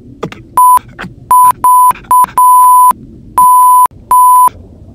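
Censor bleep: a steady high beep repeated seven times in quick succession, some blips short and some longer, blanking out a cartoon character's dialogue. Faint snatches of the soundtrack show through between the bleeps.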